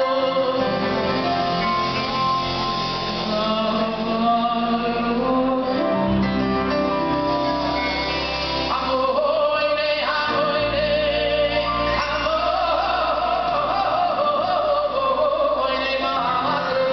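Male lead vocalist singing into a microphone over live band accompaniment.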